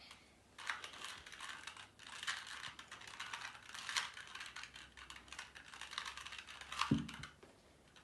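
A 2x2 Rubik's cube being scrambled: rapid clicking and clacking of its plastic pieces as the layers are twisted, with one louder knock about seven seconds in.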